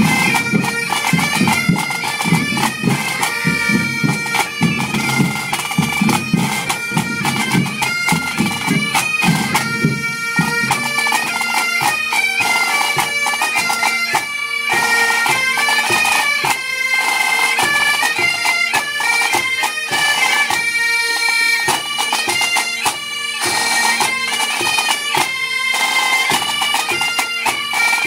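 Bagad pipe band playing: bagpipes sounding a steady drone under a fast stepping melody, with drums. The heavy low drumming drops away about ten seconds in, leaving the pipes over lighter percussion.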